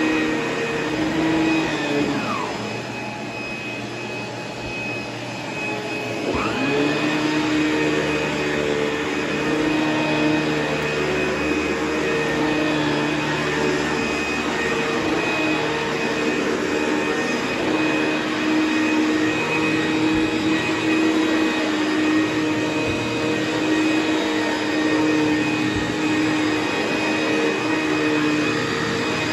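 ProTeam commercial upright vacuum cleaner running steadily as it is pushed over carpet. Its motor whine drops and the sound gets a little quieter about two seconds in, then rises back up about six seconds in.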